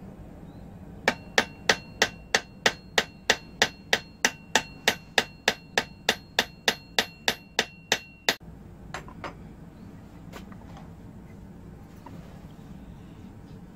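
Hammer driving a toothed strip of saw-blade steel as a wedge into the top of a wooden axe handle: about three quick, even blows a second for some seven seconds, with a metallic ring under them that stops with the last blow. Two lighter taps follow.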